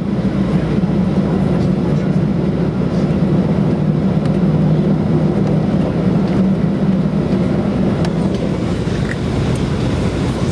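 Steady cabin noise inside a Boeing 737-800 on the ground after landing: its CFM56-7 engines running at low thrust with a low hum and rumble. A few faint ticks come through now and then.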